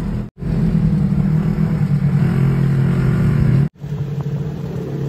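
Polaris RZR side-by-side engine running steadily while under way, heard from onboard, with two brief dropouts.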